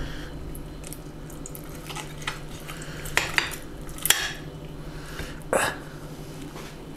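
Fork and table knife clinking now and then against a plate while cutting into braised pork trotters: a few scattered sharp clicks, the loudest about four seconds in and again about five and a half seconds in.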